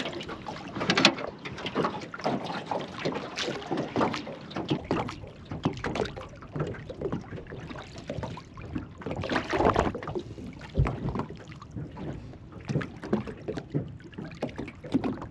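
Water splashing and sloshing beside a small boat, with irregular knocks and clatter on the hull, as a hooked small jewfish (mulloway) is brought alongside and netted. The splashing is busiest about nine to ten seconds in.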